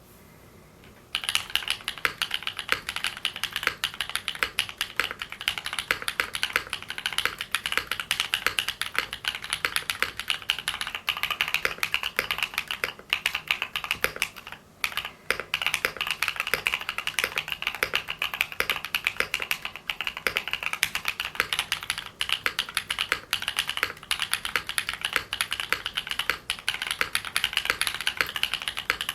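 Continuous fast typing on a Freebird TKL mechanical keyboard with lubed Holy Panda tactile switches on an aluminium plate: dense clacky keystrokes under a recurring lower knock. The keycaps change partway, from GMK ABS to NicePBT and back, with a short pause about halfway.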